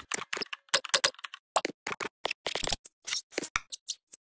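Typing sound effect: a quick, irregular run of computer keyboard keystrokes that stops just before the end.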